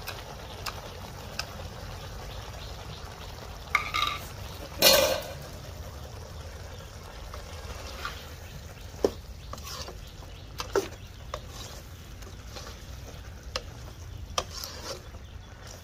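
A perforated metal skimmer ladle stirs a thick bitter gourd curry in a metal pot, giving scattered clinks and scrapes of metal on metal. There is a louder clatter about five seconds in.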